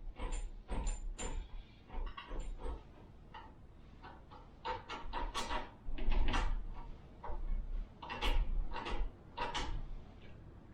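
Irregular clanks, clicks and knocks of hand tools and metal parts being handled during repair work on a go-kart, a few with a brief high metallic ring in the first second or so.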